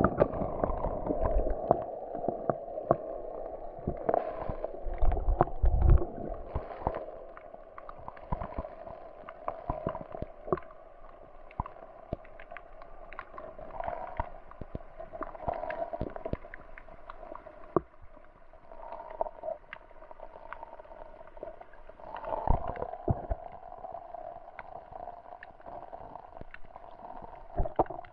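Muffled underwater sound picked up by a submerged camera in lake water: a steady low hum with scattered clicks and knocks throughout.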